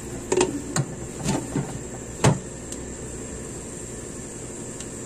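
A glass pot lid being set on a cooking pot: a few short clinks and knocks in the first couple of seconds, the loudest a little over two seconds in, then a steady background noise.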